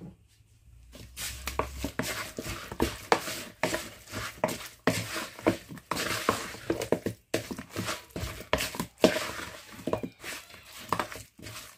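Wooden spoon stirring oiled, spice-coated raw chicken wings in a mixing bowl: wet squelching of the meat with irregular knocks and scrapes of the spoon against the bowl, starting about a second in.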